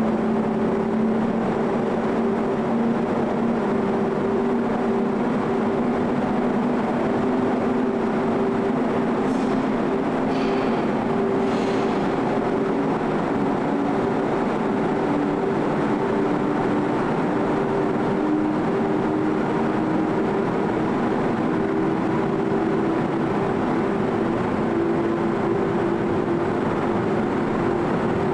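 Car ferry's engines running steadily while under way, heard on board as a constant drone with a low hum. A few faint high squeaks come briefly about ten seconds in.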